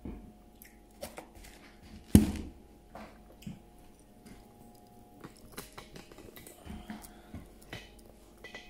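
Scattered knocks and clinks of dishes and utensils being handled, with one loud thump about two seconds in, over a faint steady hum.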